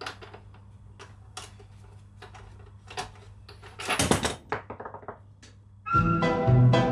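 Small metal clicks and clinks of hand tools working on a motorcycle's rear axle sliders, with a louder metal clatter and a brief ring about four seconds in. Background music with a steady beat starts about six seconds in.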